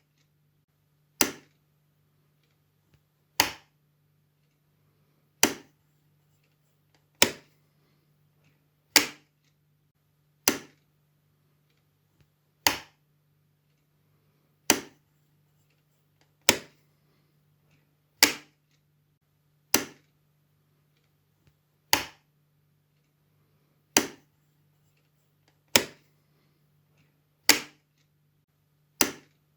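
Light switch clicking on and off, one sharp click every second and a half to two seconds, sixteen in all, over a faint steady low hum.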